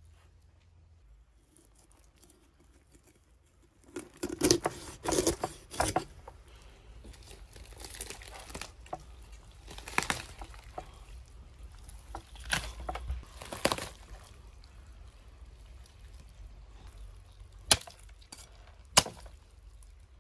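Whole roasted lamb being torn apart by hand on a wooden cutting board: crisp, crackly skin and meat tearing in irregular bursts, starting a few seconds in. There are two sharp knocks near the end.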